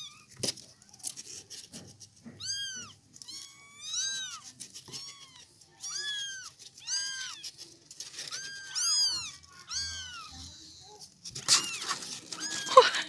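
Young kittens meowing over and over: short, high-pitched calls that rise and fall, about one or two a second, with a louder rustling scuffle near the end.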